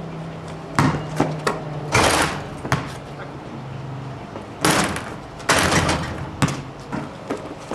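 Basketball play on a backyard hoop over concrete: sharp knocks of the ball on the pavement and a dunk attempt at the rim near the end, with short noisy scuffs in between. A low steady hum runs under the first half.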